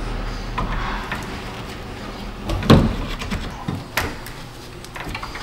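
Replacement radiator knocking and clunking against the car's radiator support as it is lowered into place: a few knocks with smaller clicks between, the loudest about two and a half seconds in and another about a second later.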